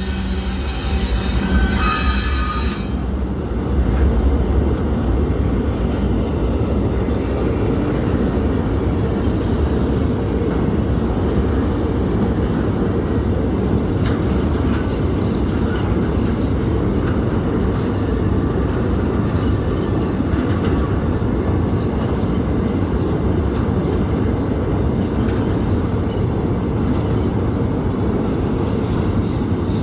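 Freight train wagons rolling past with a steady low rumble of wheels on rail. High, several-toned wheel squeal at the start cuts off about three seconds in.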